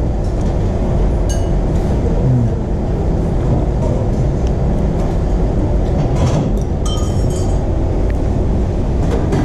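A steady low rumble, with a few light clinks of chopsticks on tableware about a second in and again around six to seven seconds in.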